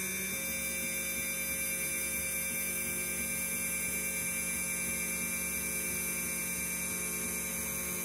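Water-cooled CNC router spindle at about 10,000 RPM, driving a 1/8-inch two-flute carbide end mill that is boring holes in aluminum plate. It gives a steady, even hum of several held tones.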